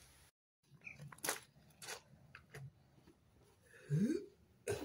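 Footsteps and light knocks and taps on stone paving, with a short sound rising in pitch about four seconds in. The sound cuts to dead silence for a moment just after the start.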